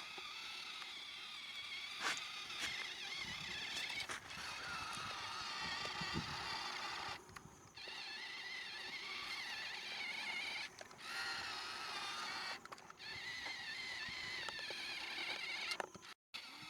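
Small electric motors and gearboxes of RC construction models whining, the pitch wandering up and down with throttle and load, with a few clicks and knocks. The sound breaks off briefly several times.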